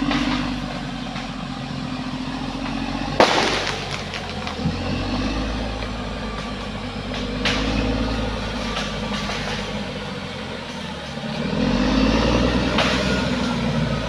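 Caterpillar D6R XL bulldozer's diesel engine running under load, its revs slowly rising and falling. A sharp knock a little over three seconds in is the loudest moment, and a lighter one comes about seven and a half seconds in.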